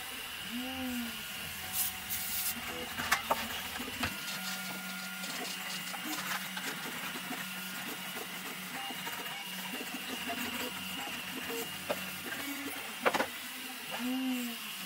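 Desktop FDM 3D printer running, its stepper motors humming steadily with short rising-and-falling pitch sweeps about a second in and again near the end. A few sharp clicks come from plastic parts and a glue bottle being handled on the bench.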